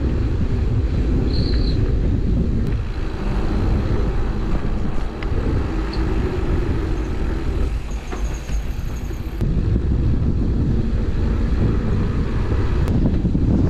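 Wind and rumble on the microphone of a mountain bike riding down a trail, a loud steady noise with a couple of brief high squeaks.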